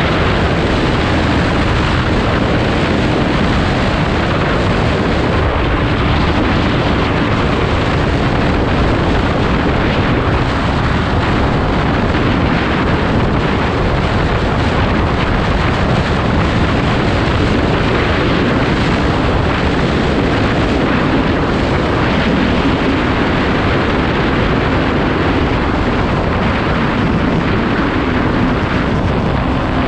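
Kawasaki Z250 motorcycle at highway speed: heavy wind rush on the microphone over the engine's steady note, which drops slightly in pitch as the bike slows.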